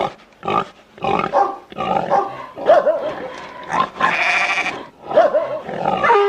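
A run of short animal calls, one after another with brief gaps, with a noisier, harsher call about four seconds in.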